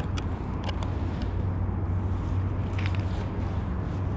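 Steady low rumble of wind on the microphone, with a few light clicks and rustles as fishing line from an ice-fishing tip-up is pulled in by hand over the hole.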